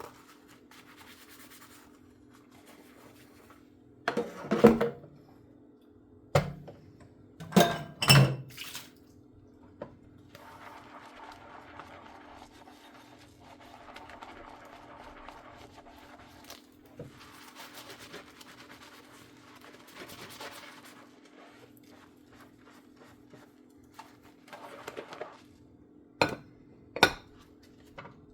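Hand dishwashing at a sink: dishes and cutlery clatter sharply several times in the first third, with two quieter stretches of washing sounds in between and a couple of clicks near the end. A steady low hum runs underneath.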